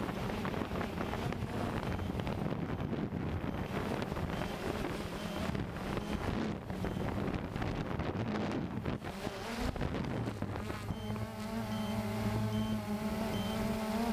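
Cheerson CX-20 quadcopter's motors buzzing in flight, with gusts of wind rushing over the microphone. The wind covers the buzz in the middle, and the buzz comes back clearer near the end, its pitch wavering as the motors change speed.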